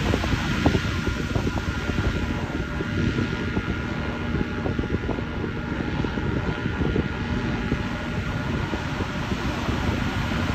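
Paramotor trike engine and propeller droning steadily overhead, with wind rumbling on the microphone.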